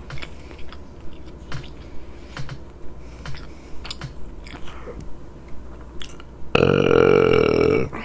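Close-up mouth sounds of a woman chewing, with short smacking clicks about every half second. About six and a half seconds in comes a loud, drawn-out burp that lasts about a second and a half.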